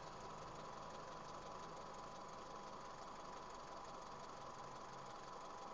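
Subaru EJ253 2.5-litre flat-four engine idling warm, with a steady knock that appears once the engine is warmed up.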